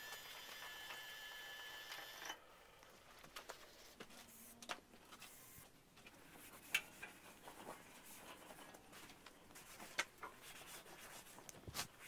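Quiet handling sounds: faint rubbing and a few scattered light clicks, as a rag buffs silicone spray into the sawmill's steel mast arms. A faint steady high whine runs for the first couple of seconds and cuts off.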